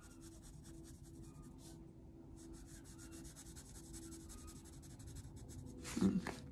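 Graphite pencil scratching on paper in quick back-and-forth strokes, shading in a medium tone. Near the end comes a louder rustle as the sheet of paper is shifted on the sketchbook.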